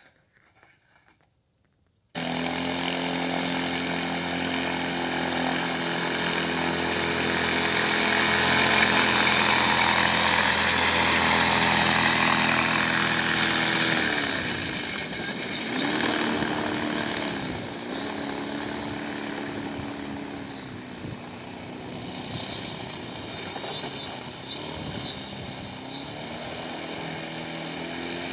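Homemade propeller-driven aerosled running: a steady whining propeller-and-motor drone with several layered tones that starts suddenly about two seconds in. Around the middle its pitch dips and comes back up twice, and it runs somewhat quieter after that.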